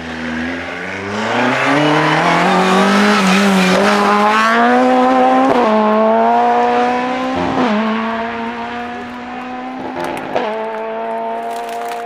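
Vauxhall Corsa rally car's engine pulling hard out of a slow chicane, the revs climbing for several seconds. It then shifts up three times as it accelerates away.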